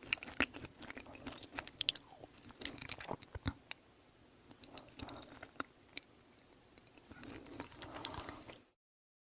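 A person chewing food, with many sharp crunching clicks. The chewing is busy for the first few seconds, sparser in the middle and busier again near the end, then cuts off to silence.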